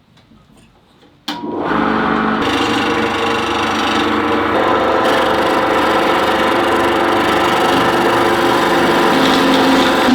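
Wood lathe switched on about a second in, its motor running steadily and loudly. From about two seconds in, a chisel cuts into the spinning wood blank, adding a rough scraping hiss.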